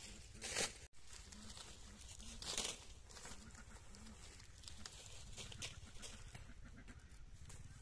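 Dry corn stalks and charred field debris rustling and crackling underfoot and by hand, with two louder rustles about half a second and two and a half seconds in, over a low rural background.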